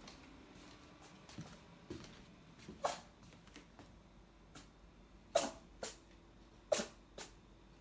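Domestic cat sneezing in a quick run of short, sharp sneezes. The two loudest come about five and a half and seven seconds in, each followed by a softer one.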